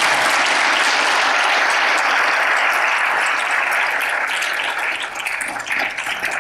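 Audience applauding, a steady full round of clapping that thins out into scattered separate claps and dies down near the end.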